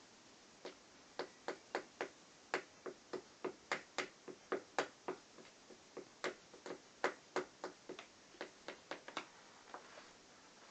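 Small toy hammer tapping coloured shapes into a board: a run of light, quick knocks at an uneven pace of about three a second, stopping near the end.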